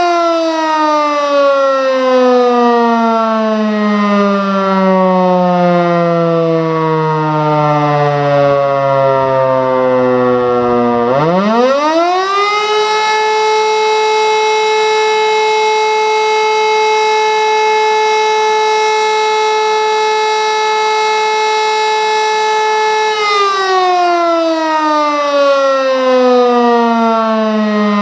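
E57 electric rotary mast siren sounding its test signal. It winds down in falling pitch, spins back up quickly about eleven seconds in, holds one steady tone for about eleven seconds, then starts winding down again near the end.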